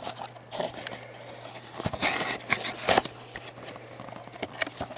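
Cardboard booster-pack box being torn and pried open by hand: tearing, scraping and crinkling with a few sharp snaps, the loudest rip about two seconds in.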